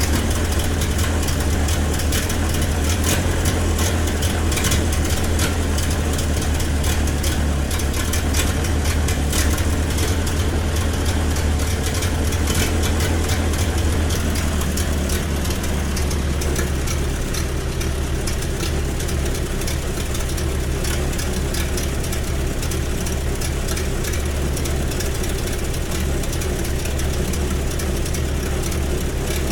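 Sawmill's engine running steadily with a low, even drone; about halfway through it drops slightly in level.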